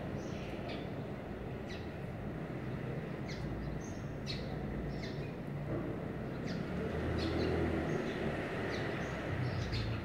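Small birds chirping: scattered short, high chirps, one or two a second, over a steady low background rumble.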